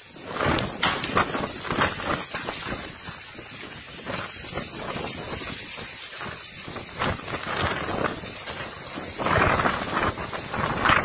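Strong wind of a dust storm blowing past and across the phone's microphone, a continuous rushing that swells into louder gusts near the end.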